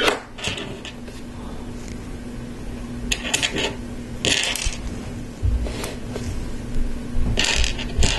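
Small plastic LEGO Technic pieces clicking and rattling as they are picked from the table, handled and fitted together, in a handful of short, sharp bursts.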